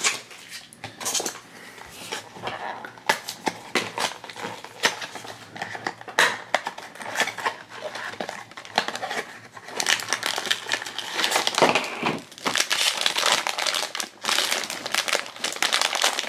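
A cardboard blind box being opened by hand, its flaps and card rustling, then the foil bag inside crinkling and tearing as it is pulled open and handled. The crinkling grows denser and louder from about ten seconds in.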